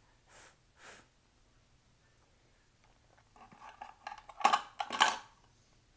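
Rustling and clicking of small objects being handled, loudest in two bursts near the end, after two short hissing "f" sounds near the start.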